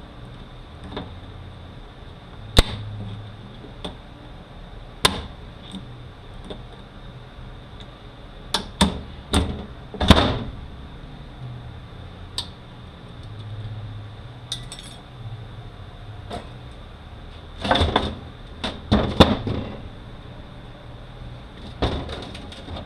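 Scattered sharp metal knocks and clanks of hand tools working on a transfer case, with two bunches of several quick hits, around a third and around three quarters of the way through, while the front seal is worked out to reach the snap ring.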